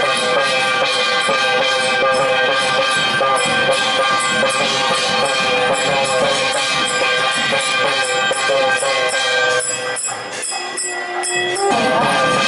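Music: sustained held tones over a quick rhythm of jingling percussion. The texture changes abruptly for about two seconds near the end, then the music resumes.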